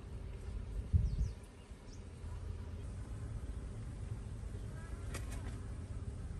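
Outdoor ambience: a steady low rumble with a few faint, short bird chirps. A low thump comes about a second in, and a sharp click about five seconds in.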